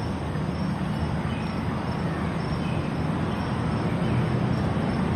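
Steady low background rumble, with faint high chirps now and then and no distinct cracks from the snail shells.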